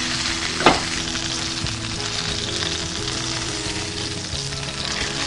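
Rack of lamb searing in hot oil in a skillet: a steady sizzle, with a single sharp knock about a second in.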